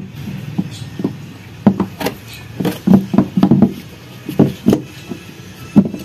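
Hard plastic knocks and clicks as a new twin-tub washing machine gearbox with its plastic pulley is handled and pushed into place against the tub base: an irregular run of about a dozen sharp taps, bunched closely together around the middle, with one more near the end.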